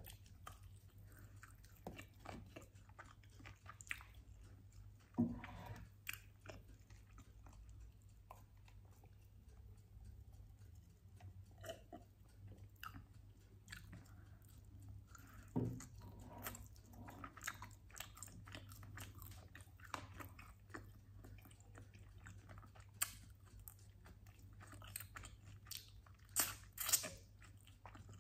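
Close-miked chewing and biting of sauced chicken wings: wet mouth sounds with many short, sharp clicks scattered throughout, a few of them louder, over a steady low hum.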